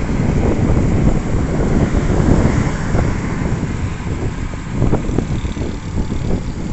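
Wind rushing and buffeting on the microphone of a moving motorcycle, with the ride's road and engine noise beneath it.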